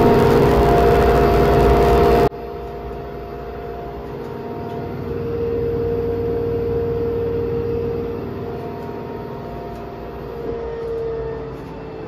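Front-loading washing machine on its spin cycle: a loud rushing whir with a steady motor whine. About two seconds in it cuts off abruptly to a much quieter, duller whine that swells and fades.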